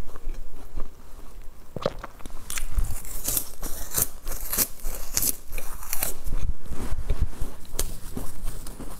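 Crisp, crunchy bites into a dry, brittle stick snack, heard close up on a lapel microphone: a run of sharp cracks and crunches as pieces snap off and are chewed.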